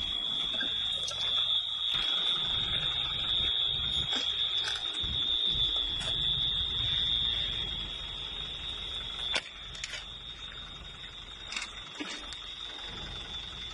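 An electronic alarm sounding one unbroken high, steady tone, over a low rumble with a few scattered knocks and clicks.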